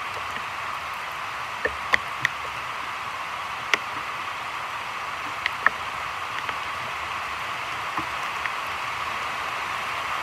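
Heavy rain falling on a creek's surface and the leaves around it: a steady hiss, with a few sharp louder taps scattered through it.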